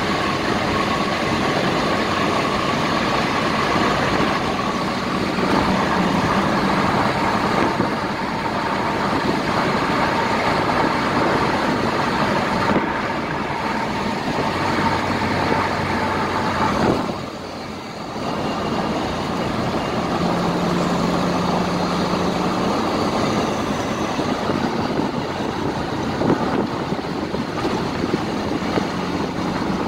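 Steady road and tyre noise with the car's engine running, heard from inside the cabin at highway speed. The noise drops briefly a little past halfway, then returns to the same level.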